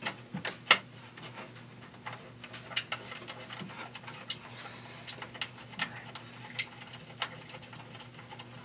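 Screw being turned in with a screwdriver to fasten a panel back onto a computer's metal case: a string of irregular sharp clicks and scrapes, the loudest about a second in, over a faint steady hum.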